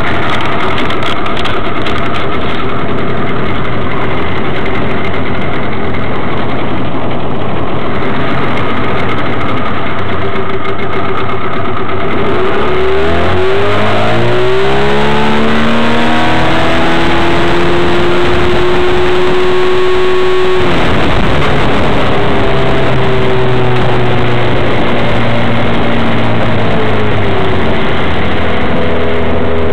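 Suzuki 15 hp outboard motor running under way, steady at first. About halfway through its pitch climbs for a few seconds and holds. A few seconds later it drops suddenly to a lower pitch, then climbs again near the end.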